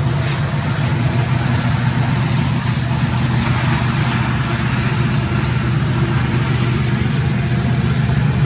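Diesel freight locomotives, a BNSF-led consist, running with a steady low engine drone under an even rushing noise.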